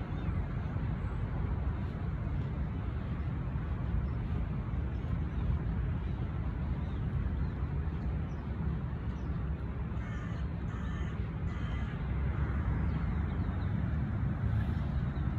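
Crows cawing: three short calls about ten seconds in. Under them runs a steady low outdoor rumble.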